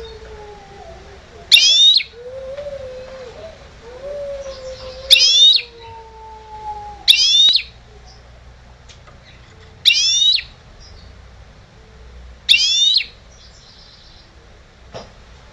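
Caged goldfinch hybrid (mixto jilguero) singing five short, loud bursts of rapid high twittering notes a few seconds apart. A low wavering howl sounds faintly behind it in the first half.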